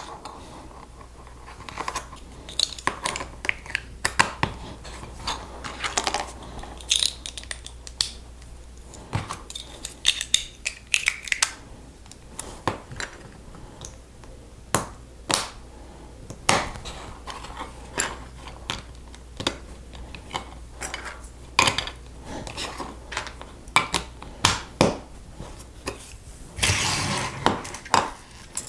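Plastic Lego pieces clicking and clattering as they are picked up, sorted and pressed together, in irregular sharp clicks, with a denser rattle near the end.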